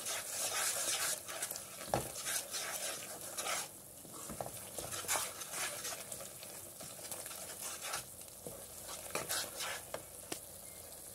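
Wooden spoon stirring and scraping a thick tomato-and-onion masala around a hot frying pan as the sauce sizzles, with one sharper knock about two seconds in.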